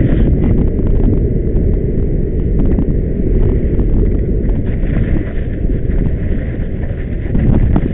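Large longboard wheels rolling fast on asphalt: a loud, constant low rumble with frequent small clicks and knocks from bumps and grit in the road surface.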